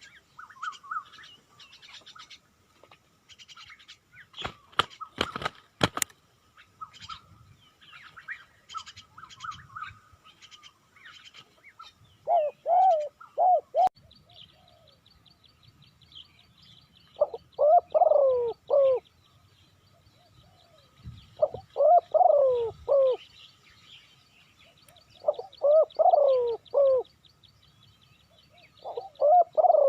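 Spotted dove cooing: a loud multi-note coo phrase, repeated five times about every four to five seconds from about twelve seconds in. Before the cooing, small birds chirp and a few sharp clicks sound, with a faint steady high tone behind.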